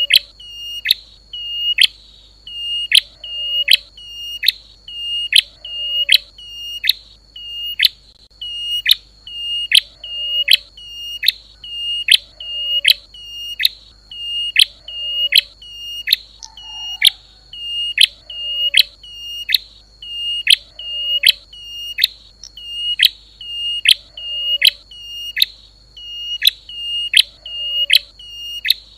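Looped lure recording of prenjak lumut (klawu) calls: short, sharp, high notes that drop in pitch, repeating evenly about twice a second without a break.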